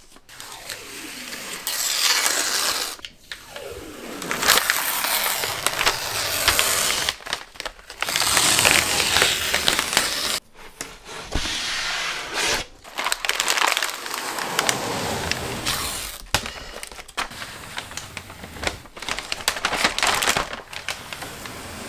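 Protective masking film being peeled off a cell-cast acrylic sheet: a crackling, tearing sound in several long pulls separated by short pauses.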